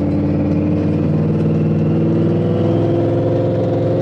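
Twin-turbo Ford F-150's engine pulling steadily at part throttle around 2,500–3,000 rpm while the truck drives slowly, heard from inside the cab: an even engine and exhaust note that holds its pitch.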